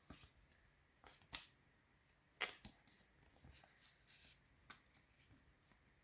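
Faint, scattered rustles and light clicks of Pokémon trading cards being handled and slid against one another, the loudest a little over two seconds in.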